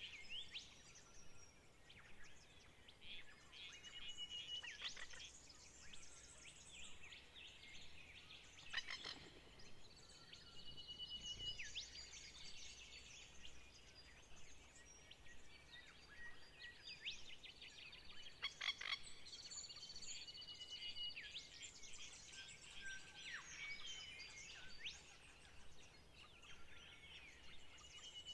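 Faint background chorus of animal calls: high-pitched trills, chirps and short repeated tones overlapping throughout, with a couple of louder chirps about a third and two-thirds of the way through.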